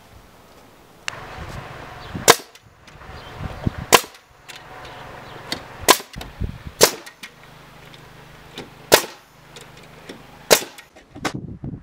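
Pneumatic framing nailer firing nails into 5x15 cm timber: six loud, sharp shots spaced one to two seconds apart, with a few quieter clicks between them.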